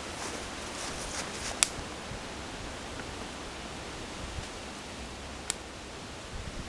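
A small fire of damp wood catching and crackling over a steady hiss, with a sharp pop about one and a half seconds in and another about five and a half seconds in.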